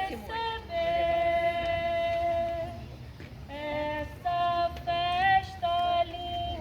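Voices, led by women's voices, singing a song without instruments, in long held notes with short breaks between phrases.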